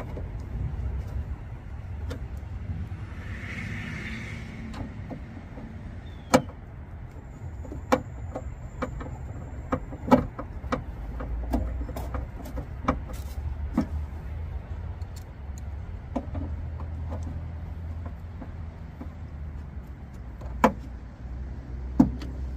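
Phillips screwdriver turned by hand, driving screws into a plastic piece on a car's bare inner door frame. Scattered sharp clicks and knocks of the tool on metal and plastic, the loudest about six, ten, twenty-one and twenty-two seconds in, over a steady low rumble, with a short hiss a few seconds in.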